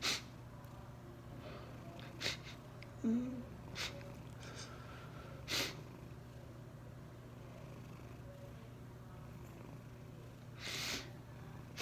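A man crying quietly: a handful of short, sharp sniffs and sobbing breaths, one breaking into a brief whimper about three seconds in, over a steady low hum.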